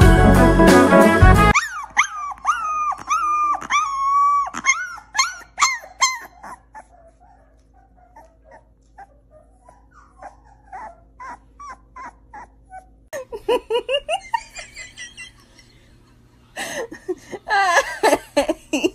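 Music stops just under two seconds in, followed by dogs howling and whimpering in a run of wavering, high calls. A quieter middle stretch holds faint little whimpers and yips, and the howling comes back near the end.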